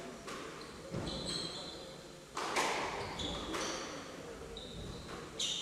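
Squash rally: about six sharp ball strikes off rackets and walls echoing in the hall, the loudest about two and a half seconds in, with the players' shoes squeaking on the wooden court floor.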